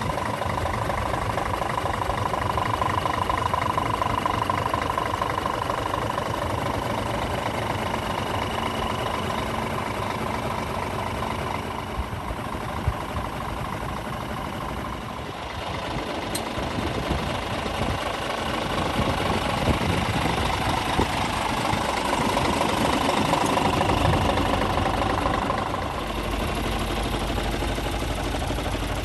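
Scania R450 tractor unit's 13-litre six-cylinder diesel engine idling steadily, swelling a little louder for a few seconds late on before settling back.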